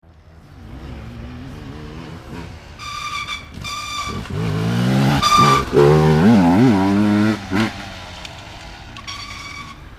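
Off-road racing engines revving hard and rising and falling in pitch, loudest in the middle. Four short high beeps sound over them.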